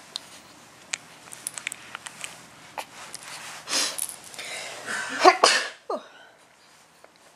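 A three-week-old baby sneezing: a short noisy burst about four seconds in, then the loudest sneeze about a second later, with small clicks and rustles before.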